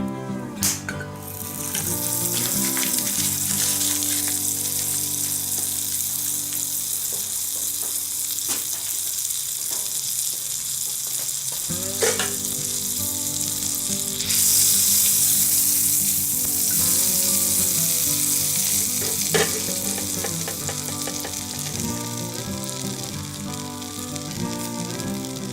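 Food sizzling and frying in a cast-iron skillet, a steady dense crackle that grows louder about halfway through.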